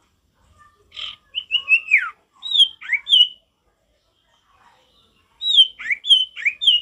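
Male common iora (sirtu, cipoh) singing: two bursts of loud, clear whistled notes, most sliding steeply down in pitch, with a pause of about two seconds between them.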